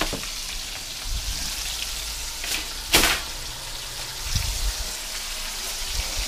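Buttermilk-marinated chicken quarters frying in a pan of hot oil, a steady sizzle. About three seconds in there is a single sharp metal clack as a wire cooling rack is set down on a foil-lined sheet pan.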